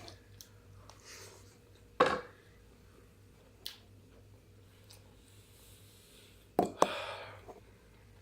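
Quiet eating sounds: a few sharp clicks, like a utensil knocking on a dish, the loudest about two seconds in and two more close together near seven seconds, each followed by a short rustle.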